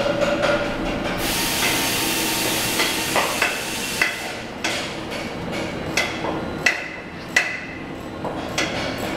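Metal being struck or knocked several times at irregular intervals, each hit ringing briefly. A loud hiss runs through the first few seconds.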